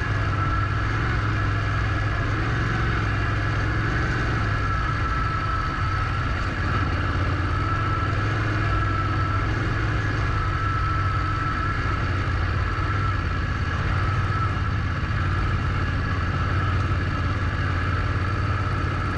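Parallel-twin adventure motorcycle engine running steadily at low speed, with a steady whine above it, as the bike is ridden slowly through soft dirt.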